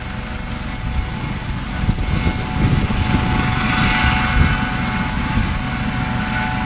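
Helicopter running on the ground after landing: a steady whine over a low, uneven beating of the rotor. It grows louder about two seconds in.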